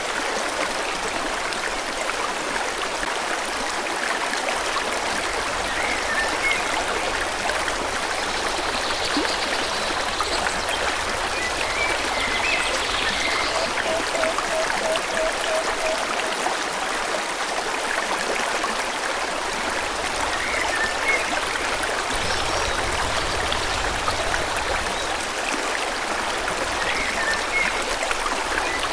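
Forest stream flowing steadily, with short bird chirps every few seconds and a brief run of quick repeated lower notes about halfway through.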